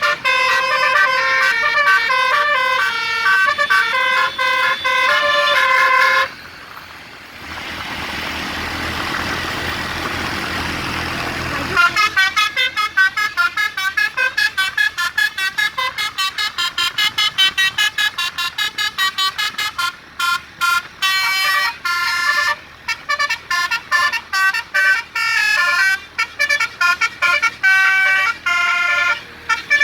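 A tour bus's telolet basuri musical horn playing a tune of pitched notes. About six seconds in it gives way to several seconds of rushing noise, then plays on in fast, short, staccato notes, several a second.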